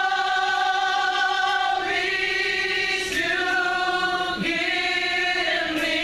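Gospel vocal group singing long held notes in harmony, the voices moving together to a new chord a few times.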